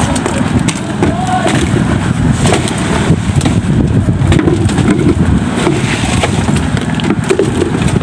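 A small engine running steadily, with scattered knocks and scrapes of metal pails of wet concrete being handled on a rebar mat during a concrete pour.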